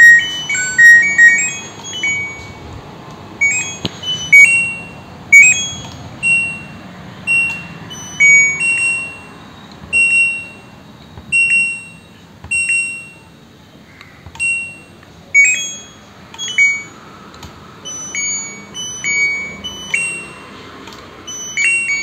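LG front-load washing machine's touch control panel beeping as its buttons are pressed: short beeps at several different pitches, some in quick runs of tones, each press answered by a beep. The beeps show the repaired touch buttons are responding again.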